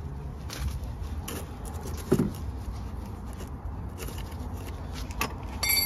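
Gloved hands wiping the new rear brake caliper and brake pipe with a cloth rag: scattered rustles, scrapes and light clicks, with a louder knock about two seconds in and a brief metallic clink near the end.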